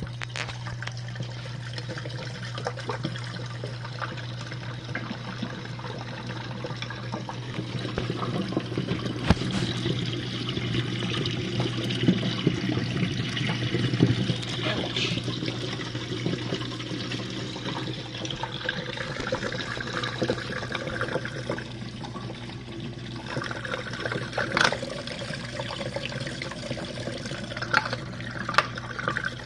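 Jenn-Air dishwasher running, its pump giving a steady low hum under constant water spraying and splashing inside the tub, with a few sharp ticks.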